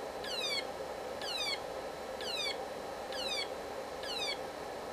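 Home-built transistor electronic siren circuit sounding a repeating alarm: a high tone that sweeps down in pitch, about once a second, on a 12-volt supply.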